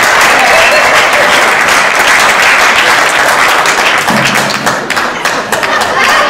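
A group of people applauding, a steady dense clapping throughout.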